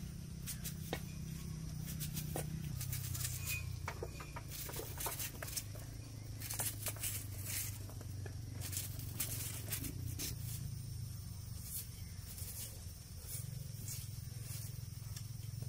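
Kitchen knife cutting and peeling potatoes and mushrooms by hand: irregular small clicks and scrapes, over a steady low hum.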